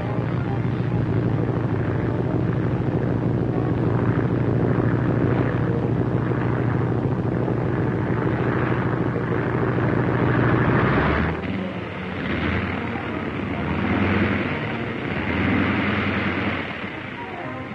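Propeller biplane engine droning steadily in flight. About eleven seconds in, the drone cuts off abruptly and gives way to a lighter, wavering sound.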